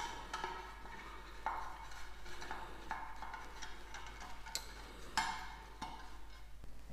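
Silicone pastry brush spreading oil inside an aluminium cake tin: faint brushing and scraping strokes, with a few light clicks of the tin being tilted and set back down on the counter.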